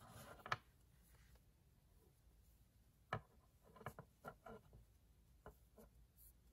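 Near silence broken by faint, scattered clicks and rustles of hands handling a metal Tunisian crochet hook and yarn, most of them in the second half.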